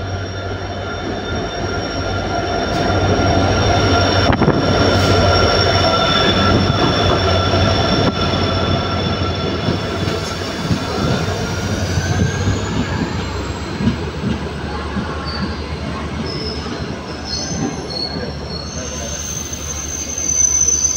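Passenger train arriving at a platform, its coaches rolling past with a low rumble and a steady high-pitched metallic squeal from the running gear. The squeal rises in pitch about halfway through, and short extra squeals come near the end as the train slows.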